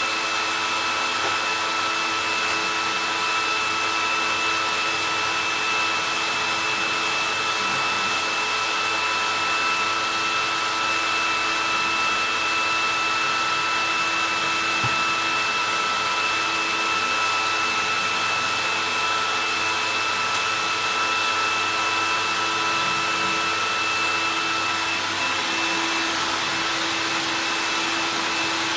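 A 1968 Hoover Convertible 1124 upright vacuum cleaner running steadily and loudly: a motor and fan hiss with a high, steady whine.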